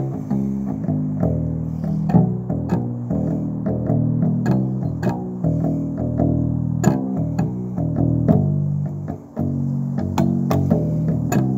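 Electric upright bass plucked with the fingers: a continuous line of low notes, each with a sharp attack, with a short break about nine seconds in.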